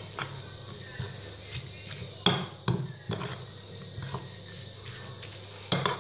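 A spoon stirring grated carrots in a ceramic bowl, knocking and clinking against the bowl now and then: the loudest knock comes about two seconds in, and two come close together near the end.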